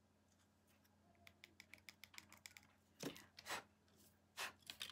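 Faint, quick clicking of plastic nail tips and small tools being handled, followed by a few louder short scuffs about three seconds in and again near the end.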